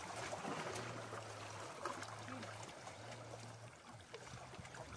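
Sea water washing and trickling against shoreline rocks, with a low steady hum that comes and goes three times in the middle.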